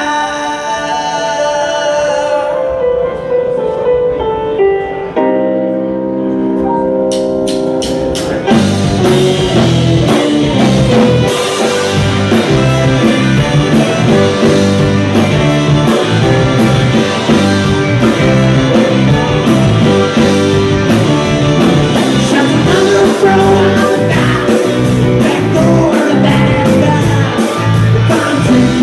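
Live rock band playing: a quieter opening of held notes, then about eight seconds in the drums, electric guitar, bass and keyboard come in together and play on at full volume with a steady beat.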